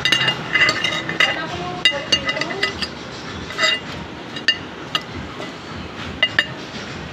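Cutlery clinking against a plate while eating: a string of sharp, ringing clinks at irregular intervals. Faint voices talk underneath in the first couple of seconds.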